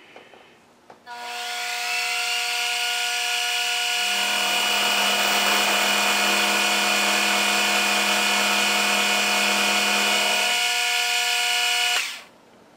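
Milling machine spindle starting up with a rising whine and running steadily, its end mill cutting along a small key blank for several seconds with a deeper hum added during the cut; the spindle then switches off about a second before the end.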